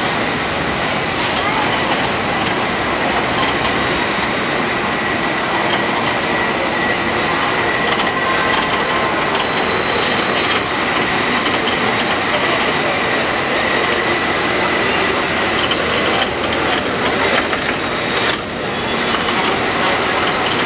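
Rainy city street with San Francisco cable cars rolling past close by: a steady, dense wash of rail and wet-street noise with a faint steady high whine through it. The noise dips briefly about eighteen seconds in.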